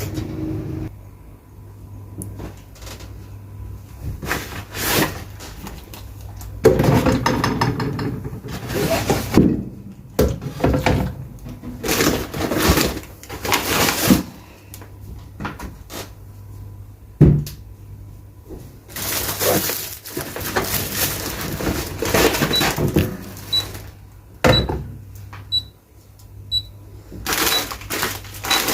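Groceries being unpacked and put away: plastic bags and packaging rustling, with knocks and thuds as items are set down, one thud louder than the rest about halfway through. Near the end, a series of short high beeps comes roughly once a second.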